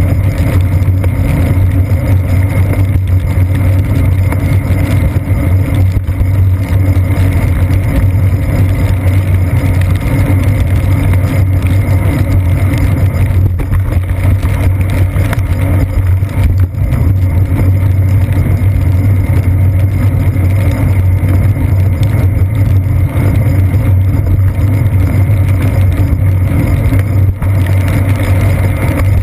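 Steady, loud rumble of a bicycle riding over wet pavement, picked up by a seat-post-mounted GoPro Hero 2 camera as road vibration and wind noise.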